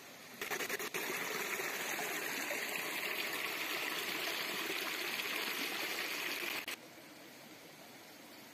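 Stream water running and trickling over rocks, a steady rushing that starts abruptly about half a second in and cuts off suddenly near the end, leaving a faint steady hiss.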